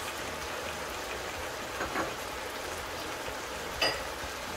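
Pot of vegetables and fried turkey wings sizzling on the stove: a steady, even hiss, with two light knocks, the louder one near the end.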